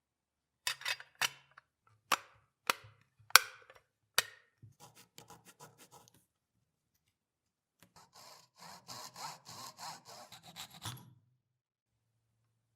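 About seven sharp knocks of hard parts being handled or set down, the loudest a little after three seconds in. After a pause come some three seconds of quick back-and-forth abrasive rubbing strokes, about three a second, as in hand sanding or filing of a part.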